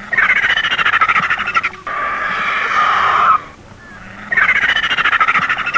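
Vulture calling: three harsh, rasping bursts, each about a second and a half long.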